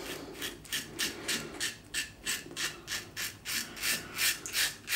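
Wilkinson Sword twist-to-open double-edge safety razor with a Dorco Titan blade scraping through lathered stubble on the cheek, in short rasping strokes, about three a second.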